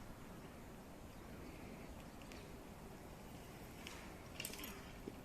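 Faint background hiss, broken about four and a half seconds in by one short, sharp burst: a cat sneezing.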